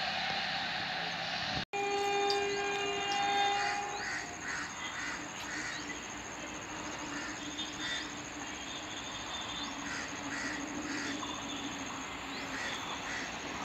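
An Indian Railways electric locomotive sounds its horn, a steady multi-tone blast of about two seconds just after a brief cut near the start. The train's rumble continues while crows caw repeatedly.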